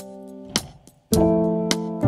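Background music: sustained keyboard chords over a light, ticking beat. The music dips briefly and a new chord comes in about halfway.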